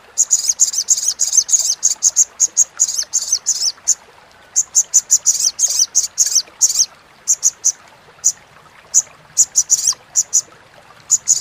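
Olive-backed sunbird giving its rapid, sharp chattering call (crecetan): dense runs of high notes for the first seven seconds or so, with a short break about four seconds in, then thinning to single chips spaced apart toward the end.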